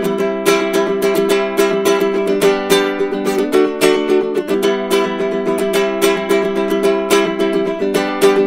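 Baritone ukulele playing a steady run of plucked notes, the chord changing a couple of times.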